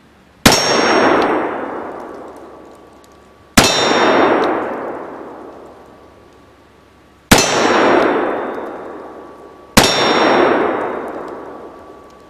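Four shots from a .44 caliber Remington Bulldog snub-nose cap-and-ball revolver, each immediately followed by a steel target ringing from the hit and fading over about two seconds.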